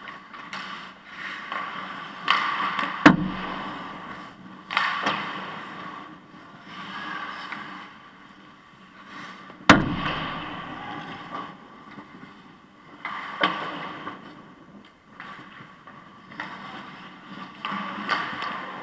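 Ice hockey play on an indoor rink: skate blades scraping and carving the ice in repeated bursts, with two sharp cracks of impacts on the ice, about three and ten seconds in.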